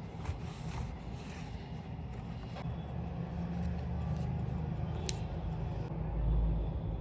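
Steady low hum of city traffic, with a deeper rumble swelling about six seconds in, as of a heavier vehicle passing, and a couple of faint clicks.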